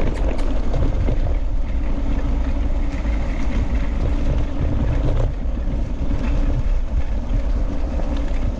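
Steady wind rumble on the camera microphone over the noise of wheels rolling fast on a dirt and gravel track, with a few light knocks.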